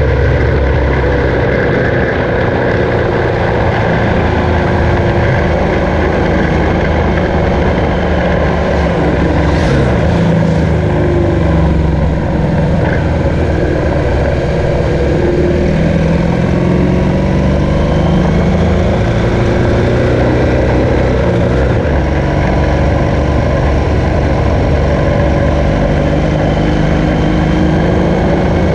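BMW R1200GS motorcycle's flat-twin boxer engine running under way, with steady wind and road rush. The engine note shifts up and down briefly about ten seconds in as the throttle changes through the bends.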